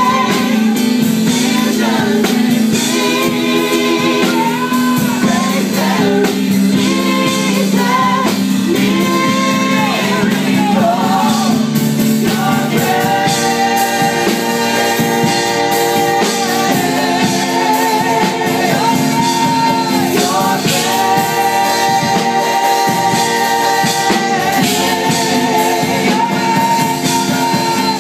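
A small mixed vocal group singing a gospel praise-and-worship song into handheld microphones, with keyboard accompaniment, amplified through PA speakers.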